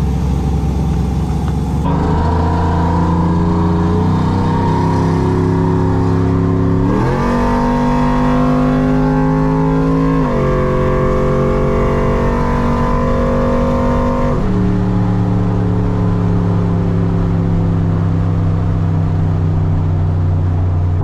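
Cammed LS V8 pickup engine accelerating hard through an automatic transmission, heard from inside the cab: about seven seconds in the engine note jumps up quickly as the transmission kicks down, then it climbs and drops at two upshifts, about ten and fourteen seconds in, before settling into a steady, slowly easing drone.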